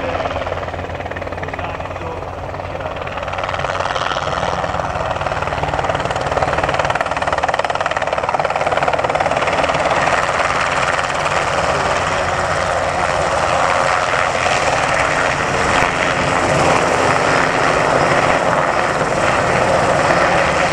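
Enstrom 480B-G helicopter's turboshaft engine and rotors running as it flies in close, growing louder about four seconds in and then holding steady.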